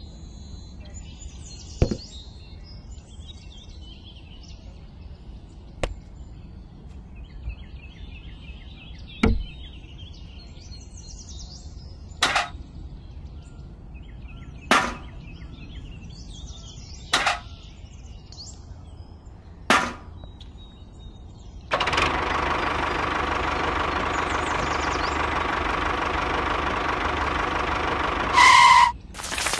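Sharp clicks and knocks of small plastic toy parts being set down and handled, about seven over the first two-thirds. Then a steady whirring of a small battery-powered toy train running on its plastic track, ending in a brief louder burst.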